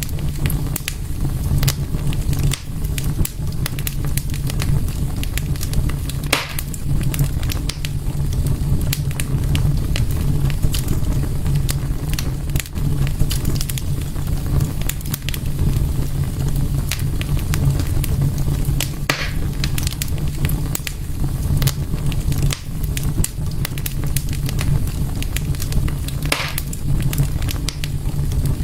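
Fire burning in a fireplace: a steady low rumble under constant crackling, with a few louder pops now and then.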